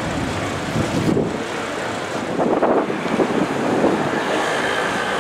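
Car engines and traffic on a city street, with wind buffeting the microphone; the traffic sound grows a little louder about halfway through.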